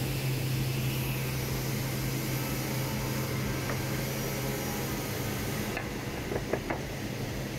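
Woodworking machinery running with a steady low hum over a constant hiss; the hum drops away about six seconds in. A few light clacks of wooden pieces being handled follow near the end.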